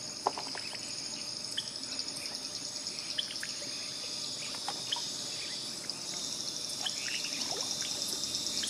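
A steady, high, pulsing trill of insects, with scattered small drips and splashes of water.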